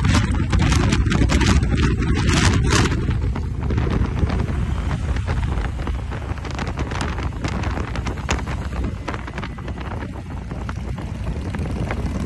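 Riding noise on a Harley-Davidson Road Glide CVO at road speed: wind buffeting the microphone over a low V-twin engine rumble. The buffeting is heaviest in the first three seconds.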